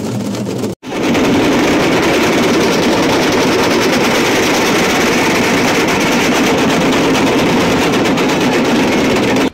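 A group of small rope-laced barrel hand drums beaten together in a fast, dense, continuous roll. The sound cuts out for a moment under a second in, then comes back louder.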